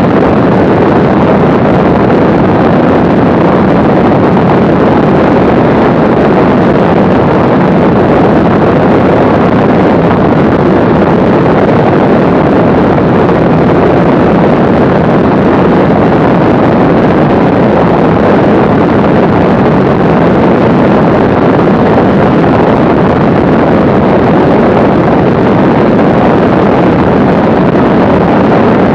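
Mooney M20C's four-cylinder Lycoming engine and propeller running steadily in cruise at about 100 mph, mixed with loud wind rush on the microphone.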